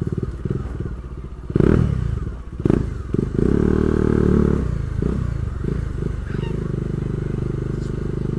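Motorcycle engine running while the bike is ridden, pulsing steadily, with the revs picking up sharply about one and a half seconds in and held higher from about three to four and a half seconds in.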